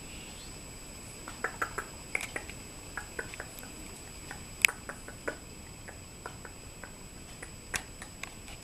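Poodle puppies shifting about in a crate: scattered small clicks and taps at irregular times, the sharpest a little before five seconds in, over a steady hiss with a faint high-pitched whine.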